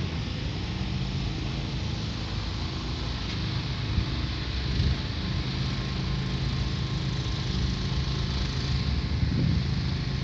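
A motor vehicle's engine running steadily at low revs, with a steady hiss of outdoor noise.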